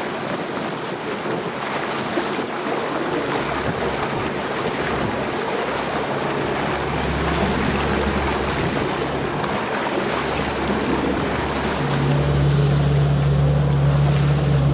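Sea water washing and splashing past a moving boat, with wind on the microphone. A boat motor's steady low hum comes in about halfway and grows stronger near the end.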